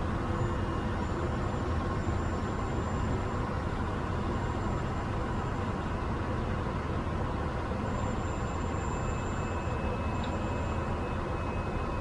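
Pilatus turboprop aircraft's engine and propeller running steadily in flight on approach, a constant rumble and rushing noise with a faint steady whine.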